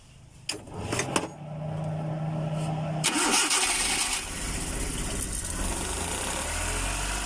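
Suzuki F6A three-cylinder engine of a Multicab being cranked by its starter for a second or two, catching about three seconds in with a brief rev, then settling into idle. The idle is poor, which the mechanic traces to a vacuum leak.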